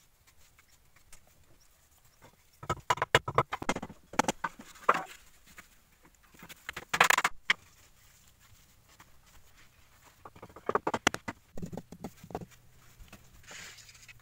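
Manual building work: four short clusters of quick knocks, taps and scrapes, a few seconds apart, with a softer rustle near the end.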